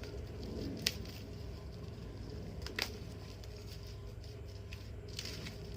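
Plastic wrapper being pulled off a phone box: faint crinkling with a few sharp ticks, about a second in and again near three seconds in, over a low steady hum.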